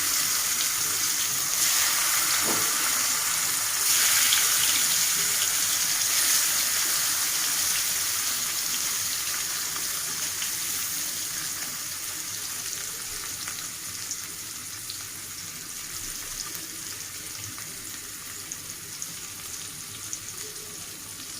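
Hilsa fish pieces frying in hot mustard oil in a kadai: a steady sizzling hiss that swells twice in the first few seconds, then gradually dies down.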